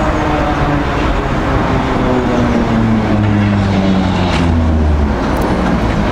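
Historic electric tram drawing into a stop: a steady low motor hum over a rumble, its pitch falling slightly as the tram slows.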